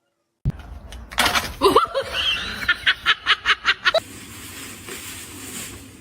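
A person laughing in a rapid run of bursts, about five a second, that stops about four seconds in, leaving a steady hiss.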